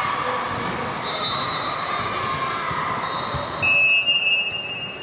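Referee whistles blowing at different pitches over the steady din of a large sports hall; the loudest blast starts about three and a half seconds in and lasts over a second.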